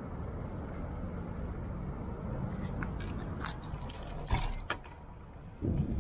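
Steady low road and wind rumble from a moving ride, with a quick run of sharp mechanical clicks and rattles around the middle. A louder rumble swells in near the end.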